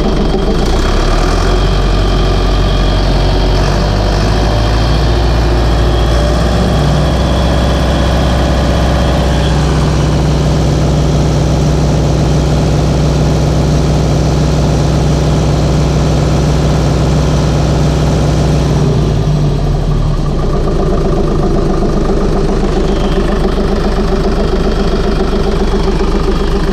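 Freshly rebuilt Deutz air-cooled four-cylinder diesel engine running. About a quarter of the way in it speeds up in steps and holds a higher speed. It drops back to a lower speed about three quarters of the way through.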